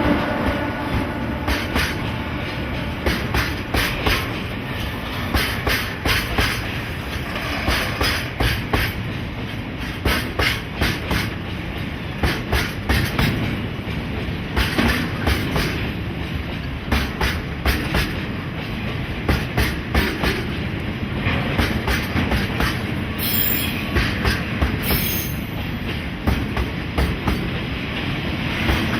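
Freight wagons rolling past, their wheels clicking steadily over rail joints above a continuous rumble, with two brief high-pitched wheel squeals near the end.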